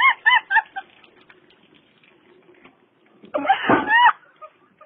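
A person's voice: a run of short, high-pitched yelps, about five a second, dying away within the first second, then a louder drawn-out cry near the end.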